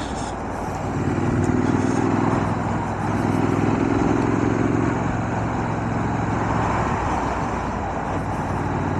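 Triumph Scrambler 900's parallel-twin engine running steadily at low revs under way, with wind and road noise. The engine note grows stronger about a second in and eases off again about five seconds in.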